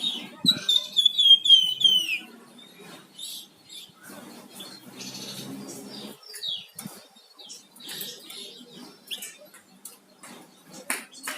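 A flamboyan songbird singing vigorously: a loud, rapid run of falling chirps in the first two seconds, then scattered short high calls and sharp notes.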